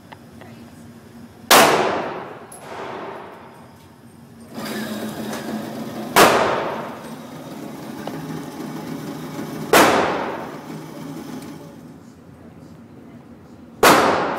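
Four shots from a Glock 20 SF pistol in 10mm Auto, fired slowly, roughly four seconds apart, each with a ringing echo that dies away over about a second.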